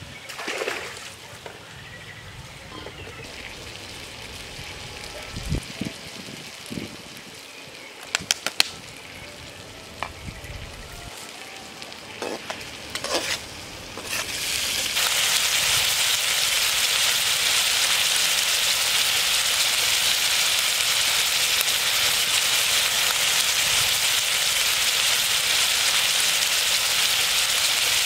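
Food frying in a metal pan on a portable gas stove. A few light knocks and clinks come first, then about halfway in a loud, steady sizzle starts as the food hits the hot pan, and it runs on evenly.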